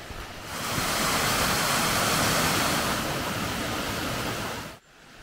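A shallow, rocky stream rushing over stones: a steady hiss of running water. It swells about half a second in and cuts off suddenly near the end.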